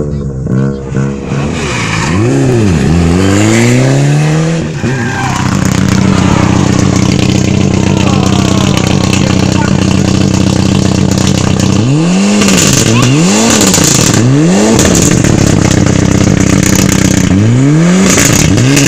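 Rally car engine revving hard in repeated rising and falling sweeps, then held at high revs for several seconds with a hiss of spraying dirt, as the car spins its wheels to claw out of the ditch; more rev sweeps follow as it gets back onto the road.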